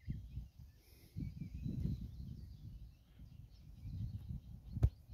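Wind buffeting the microphone in uneven gusts, with birds chirping faintly in the first second or so. A single sharp click near the end.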